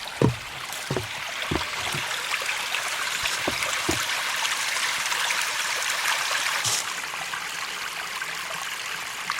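Creek water rushing and babbling over rocks, a steady hiss that grows louder over the first few seconds. A few soft low knocks come in the first four seconds.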